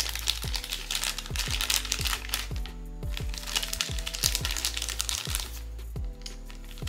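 Background music with a steady beat, over crinkling and crackling of blind-box packaging being handled and opened.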